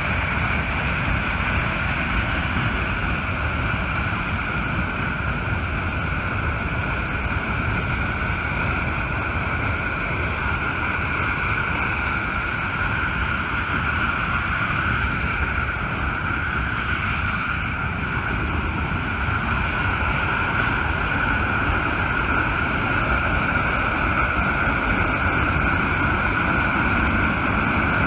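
Reservoir outlet jet blasting water out of the dam into the river below: a loud, steady rush and roar of falling water and spray, growing a little louder near the end.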